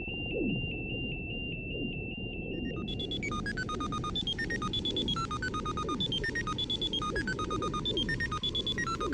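Electronic beeping: a high tone pulsing rapidly, then about three seconds in a repeating sequence of quick computer-like bleeps at several pitches takes over, all over a low rumble.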